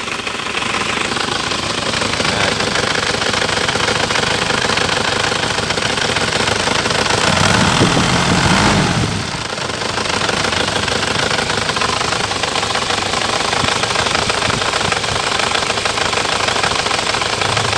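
Isuzu Panther's four-cylinder diesel engine idling steadily, fully warm after half an hour's running. About halfway through, a louder low rumble lasts a couple of seconds.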